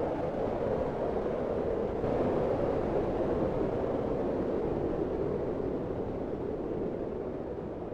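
Wind sound effect: a steady rushing of wind, centred in the low middle, swelling slightly about two seconds in and then slowly fading toward the end.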